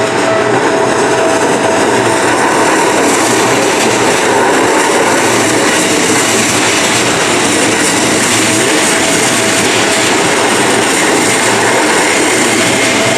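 Keikyu Main Line train passing over the level crossing at close range: a loud, steady rumble and rattle of wheels on rails.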